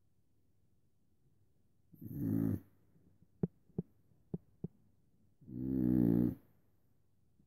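Snoring: two snores, one about two seconds in and a longer one about five and a half seconds in. Four short faint clicks fall between them.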